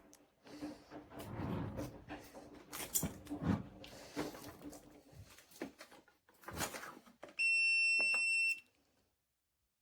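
Irregular clicks and rustling of something being handled, then a single loud electronic beep lasting about a second, about seven seconds in.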